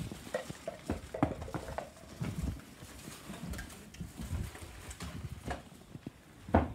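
Footsteps on wooden deck boards: irregular low thuds, with a sharper knock near the end.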